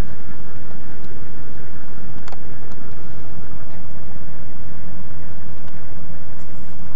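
Steady low engine drone heard inside a van's cabin, with one sharp click about two seconds in.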